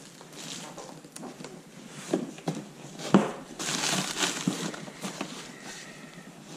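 Crumpled brown packing paper rustling and crinkling as hands dig through it in a cardboard box, with scattered knocks of cardboard and small boxes being handled. A sharp knock about three seconds in is followed by the longest, loudest burst of paper rustling.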